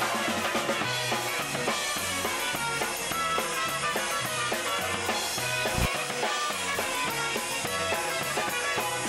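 Live polka band playing an instrumental passage, with a drum kit keeping a steady, even beat under the bass.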